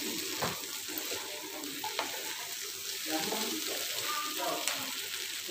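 Spiced raw banana pieces sizzling in a black frying pan while a wooden spatula stirs and scrapes through them, with a few light clicks of the spatula against the pan.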